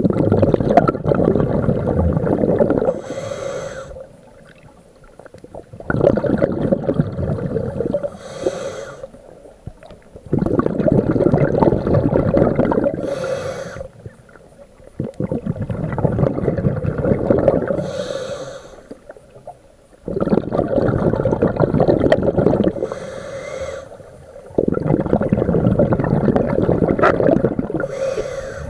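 Scuba diver breathing through a regulator underwater: a short hissing inhale through the demand valve, then a long gush of exhaled bubbles, repeating about every five seconds, about six breaths in all.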